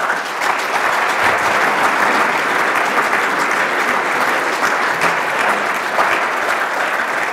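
Audience applauding, the clapping starting abruptly and holding steady.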